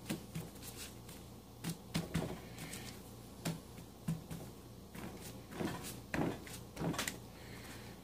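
Hands working pie-crust dough and a plastic cookie cutter on a floured sheet of paper on a counter: scattered soft knocks and paper rustles, about eight distinct hits.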